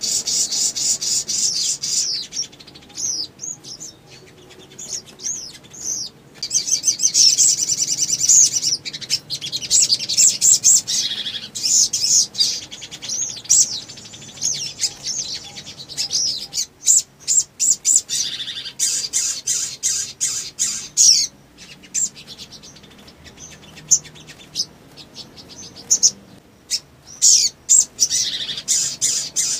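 A caged sogon (sogok ontong, a spiderhunter) singing in long, rapid bursts of high-pitched chirps and trills, broken by a few short pauses.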